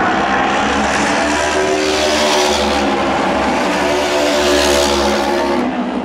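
Two auto race motorcycles running at racing speed on an oval track, their engines loud and holding a steady pitch. The sound swells as the bikes pass about two seconds in and again near five seconds, then fades slightly.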